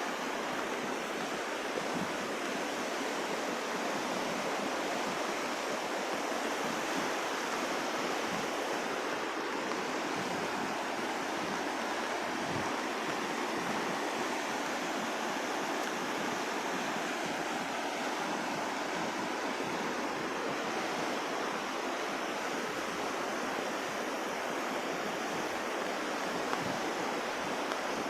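Steady, even rush of running water, typical of a stream swollen by heavy rain.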